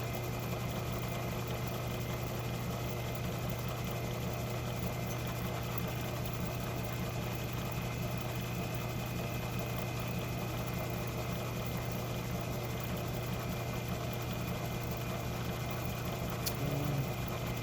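Metal lathe running steadily, with a constant low motor-and-gear hum. A short click near the end.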